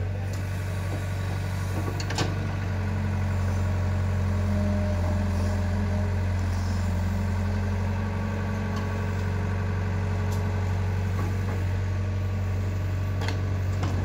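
Diesel engines running steadily: an Eicher tractor idling close by while a JCB 3DX backhoe loader digs and loads soil, a higher engine note joining for several seconds. A sharp knock about two seconds in and another near the end.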